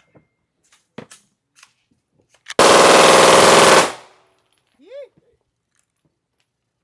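A burst of very rapid gunfire, about a second and a quarter long, with the shots so close together that they run into one continuous stream. It comes from a fast-firing gun at a shooting range. A short rising-and-falling vocal whoop follows about a second later.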